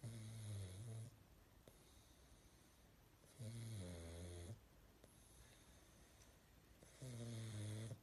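Snoring: three snores about a second long each, one roughly every three and a half seconds, with quiet between them.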